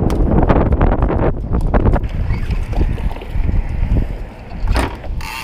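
Wind buffeting the microphone in a heavy low rumble, with scattered knocks and clicks, thickest in the first couple of seconds.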